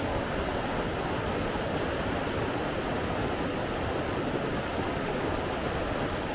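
Steady, even rush of flowing water, unchanging throughout.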